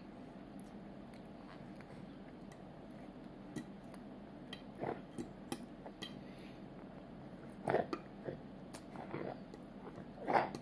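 A toddler eating: small clicks of a metal fork against a plate and chewing mouth sounds, with a few louder short sounds, the loudest near the end. A steady low room hum runs underneath.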